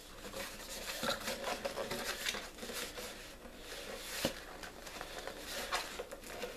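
Cardboard box being handled and pulled open: rustling and scraping of cardboard, with scattered light taps and clicks and one sharper tap a little past four seconds in.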